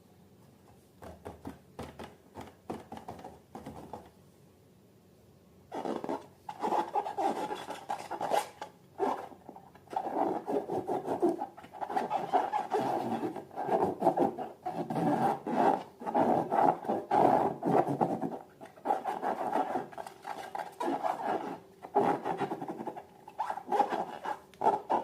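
Hands rubbing and squeezing rubber balloons and slime: irregular rubbing, squishing strokes, a few faint scratches at first, then louder and almost continuous from about six seconds in.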